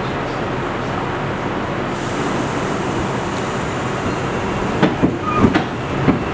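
Bombardier R62A subway car of a 3 train, a steady rumble and hiss of the running train, with a cluster of sharp clacks from the wheels over rail joints in the last couple of seconds.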